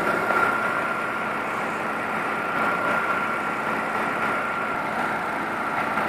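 Car engine idling with the AC compressor running, its clutch engaged while refrigerant is charged into a nearly empty system. A steady high-pitched whine sits over the even engine noise.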